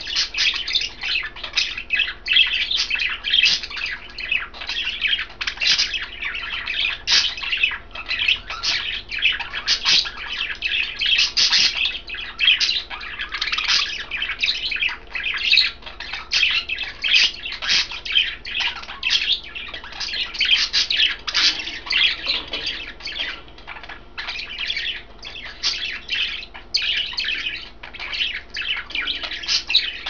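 Budgies chirping and chattering in a continuous stream of quick, high chirps.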